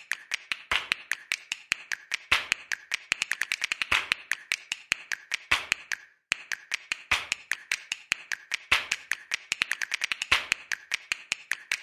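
A rapid series of short, sharp clicks, several a second and unevenly spaced, with a brief pause about six seconds in: a clicking sound effect.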